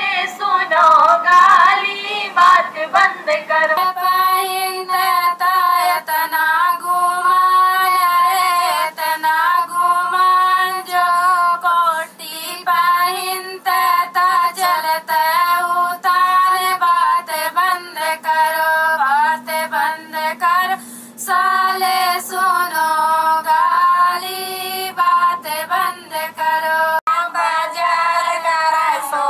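A woman singing a Bihari gali geet, a teasing wedding folk song, in long held notes.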